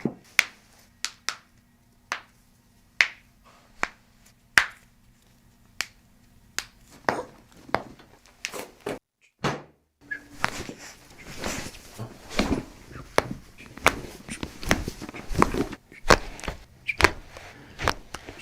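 Sharp joint cracks from chiropractic adjustments, a string of short pops roughly a second apart at first. After a brief break about nine seconds in they come closer together over a steady background of noise.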